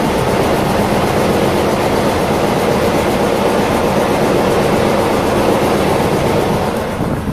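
Fishing boat's engine running steadily and loud, heard close from the hold, with water pouring into the fish tank.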